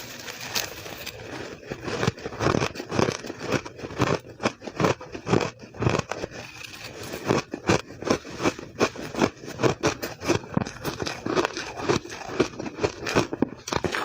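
Shaved ice being bitten and chewed close to the microphone: a rapid, irregular run of crisp crunches, several a second.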